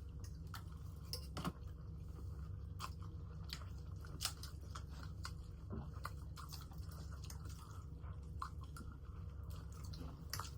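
Chow mein noodles being chewed close to the microphone: many small, scattered wet mouth clicks and smacks over a steady low hum.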